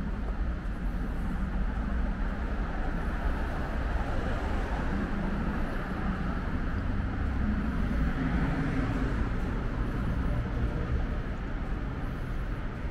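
City street traffic: the steady low rumble of passing cars, with one vehicle growing louder as it passes a little after the middle.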